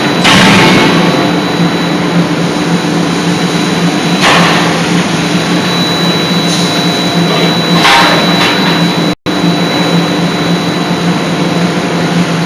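Loud, steady hum of heavy forging-shop machinery, typical of a hydraulic die-forging hammer running, with a steady low drone and a thin high tone. It swells briefly three times, about four seconds apart, and drops out for an instant about nine seconds in.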